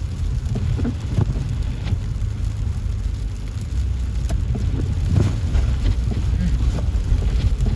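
Steady low rumble of an SUV driving on a snowy road, heard from inside the cabin: engine and tyre noise, with scattered faint clicks and knocks.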